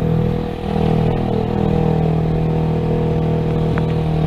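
Motor vehicle engine running steadily close by, a constant low hum with a short high squeak near the end.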